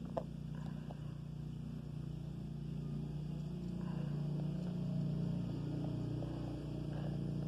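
A steady low motor hum running in the background, with one light tap just after it begins.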